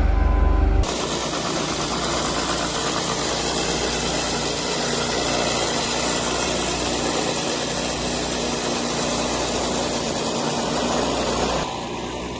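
Steady engine noise, changing abruptly about a second in and again near the end: a deep, low rumble gives way to a dense, even mechanical roar.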